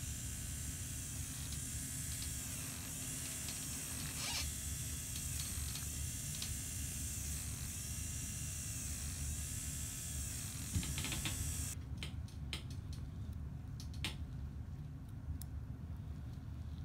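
Motorized FUE punch handpiece whining in short cycles as it cores out hair grafts, rising and falling about once a second over a steady low hum. The whine stops abruptly about twelve seconds in, leaving the hum and a few light clicks.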